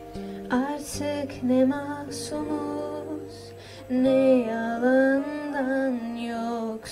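A female voice singing a slow melody to acoustic guitar accompaniment, in two sung phrases, the second louder from about four seconds in.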